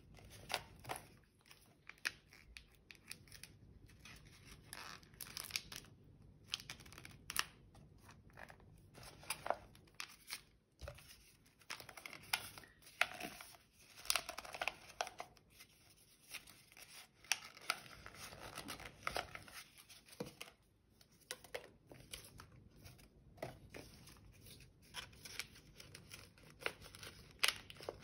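Paper rustling and crinkling in irregular crackles as a sheet is rolled tightly into a tube by hand.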